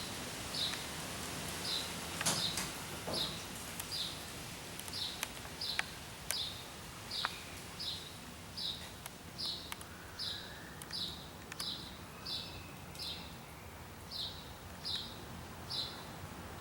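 A bird repeating a short, high chirp about one and a half times a second, with a few sharp clicks among the chirps.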